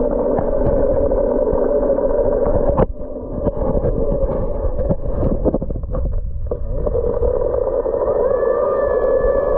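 Dolphin Nautilus CC Plus robotic pool cleaner's motor heard underwater as a steady, muffled hum. About three seconds in the hum breaks up amid water disturbance and returns steady a few seconds later.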